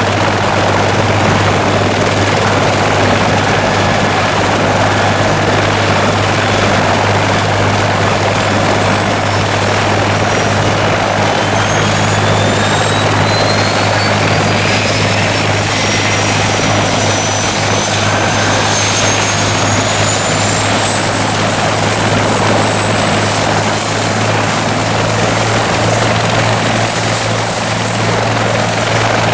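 Bell 412 helicopter running loudly with its twin turbine engines, a steady low hum under a broad roar. About ten seconds in, a high turbine whine starts climbing in pitch, then levels off high near the end.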